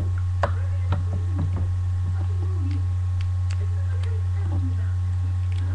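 Scattered small clicks and light knocks of a hand handling small objects close to the microphone, over a steady low electrical hum.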